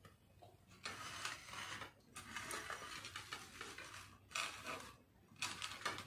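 Hands moving food on ceramic dinner plates: faint scratchy rustling and light scraping as fingers shift fried vegetable slices and rice, in several spells of a second or two.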